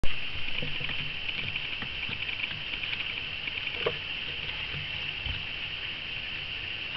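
Hamster tearing and gathering tissue-paper bedding for its nest: small rustles, crinkles and ticks of paper, with a sharper click near the middle. A steady high hiss runs underneath, and a bump sounds right at the start.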